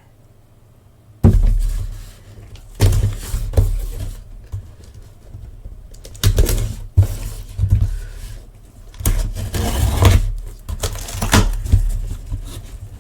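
Cardboard boxes and plastic packaging being handled and opened: irregular rustling and crinkling with heavy thumps, starting about a second in.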